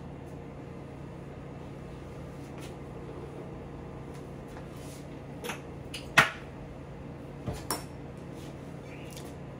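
A few light clicks of a fork against a plate during eating, the loudest about six seconds in, over a steady low room hum.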